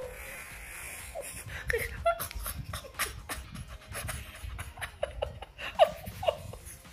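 A man crying out and laughing breathlessly in short bursts from the pain of a wax strip being pulled off his armpit, with the sharpest yelp near the end.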